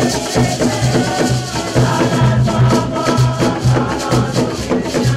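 Dance music with a steady drum beat, about two low beats a second, and shaker rattles.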